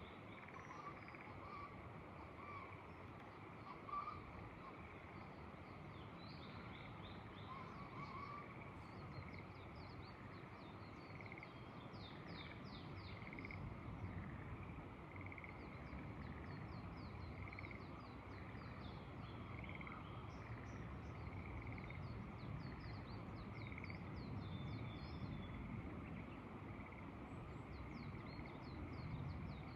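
Frogs and birds calling together: a call repeating about once a second or so, bursts of rapid high trills, and a low wind rumble underneath.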